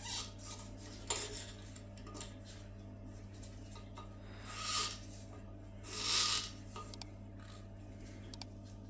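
Nut being screwed tight onto a toilet cistern's threaded fitting, with scattered small clicks and two brief rasping rubs partway through as the nut and washer are turned against the cistern.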